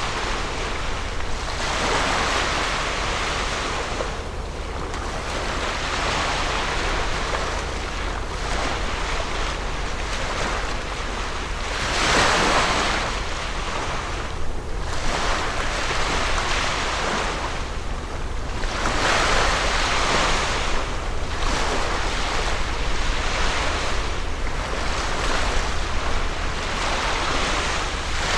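Water washing against the shore in swells that come and go every few seconds, over a steady low rumble of wind on the microphone.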